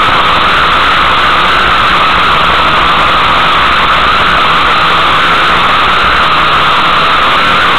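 Vehicle engine running steadily and loud, heard close up from on board, with little change in pitch or level.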